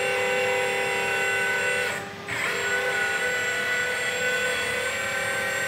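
Hydraulic pump of a LESU 1/14 metal RC wheeled excavator whining steadily as the arm and bucket move at full stick. It drops out briefly about two seconds in, then picks up again.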